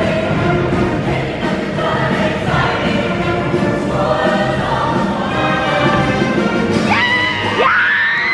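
Show choir singing in full ensemble over instrumental backing. Near the end, a high voice slides up and holds a long note.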